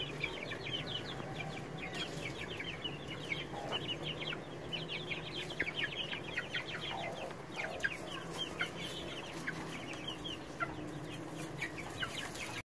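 A flock of young Aseel chickens calling continuously as they feed, a dense stream of short, high, slightly falling peeps and chirps from many birds at once, over a low steady hum.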